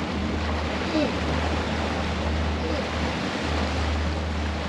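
Twin outboard motors running under way, with a steady low hum, water rushing in the wake and wind on the microphone.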